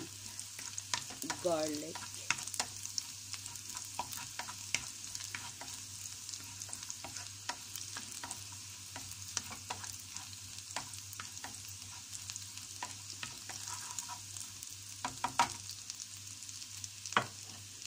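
Minced garlic sizzling in hot oil in a nonstick frying pan, being fried until it browns. A wooden spatula stirs it, scraping and clicking against the pan, with a few sharper knocks near the end.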